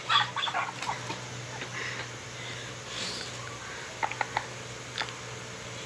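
Soft sniffing and stifled, breathy laughter. About four seconds in there are a few light clicks of a smartphone being handled, and one more near five seconds.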